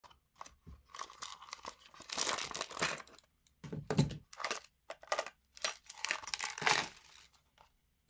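Steel-shafted screwdrivers and pliers clattering against a hard plastic parts bin as they are lifted out, then the empty bin being handled and turned over. The sound is a run of clicks, scrapes and knocks, with the loudest thump about four seconds in.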